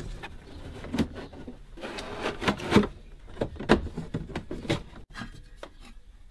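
Hard plastic air ducts being worked into place under a Volvo 850's dashboard: scattered knocks and clicks of plastic against plastic and metal, with a stretch of rubbing and scraping about two seconds in.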